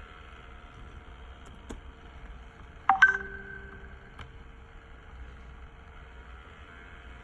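A short electronic notification chime, two quick rising notes with the higher one ringing out and fading, about three seconds in, over a faint steady electrical hum.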